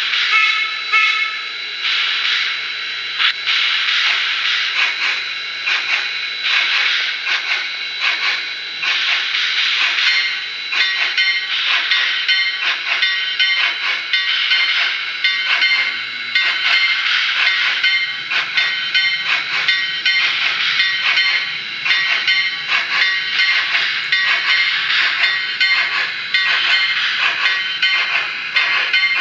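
SoundTraxx Tsunami sound decoder in a Mantua HO-scale 2-6-6-2T logging tank locomotive, playing steam-locomotive sounds through the model's small onboard speaker. A steam whistle sounds for roughly the first ten seconds. Then rhythmic exhaust chuffs with hiss follow as the engine runs.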